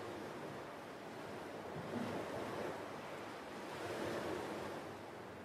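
Sea waves washing against the shore, swelling and easing twice.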